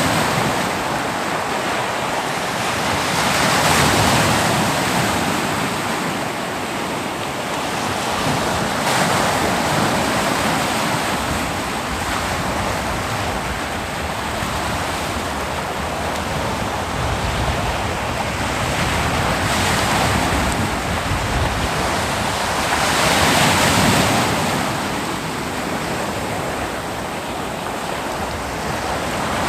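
Ocean waves breaking and washing on a beach, a continuous surf noise that swells as each wave breaks, with the louder breaks about 4, 9 and 24 seconds in. Some wind on the microphone.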